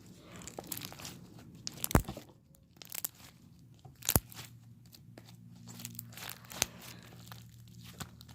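Slime being pressed and worked by hand close to the microphone for ASMR: irregular small crackles with three sharp pops, roughly two seconds apart.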